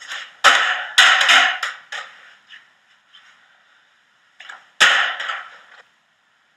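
A thrown dodgeball hitting hard surfaces: a sharp hit about half a second in, a second hit a moment later followed by a few quick bounces, and another hit near five seconds. Each hit rings briefly in the room.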